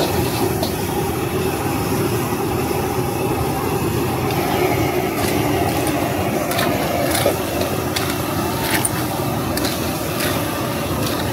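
Steady roar of a gas wok burner, with several sharp clanks of a metal ladle against the wok in the second half.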